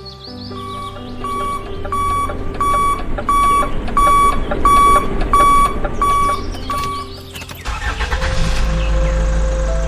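Battery-powered toy dump truck giving a steady electronic beep like a reversing alarm, about one and a half beeps a second, over background music. The beeping stops about seven seconds in and a steady low hum takes over.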